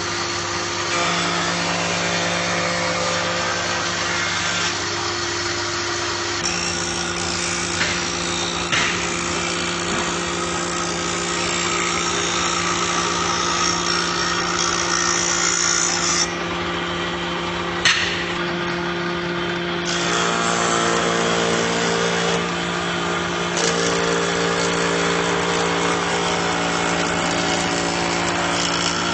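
Multipurpose surface and thickness planer machine running: a steady hum with a harsh cutting noise over it. The sound changes abruptly several times, and there is a single sharp knock about two-thirds of the way through.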